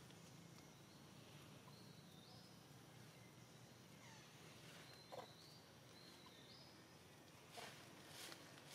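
Near silence: faint outdoor background with distant bird calls, a few flat high notes stepping up and down twice, and a few brief sharp chirps about five seconds in and near the end.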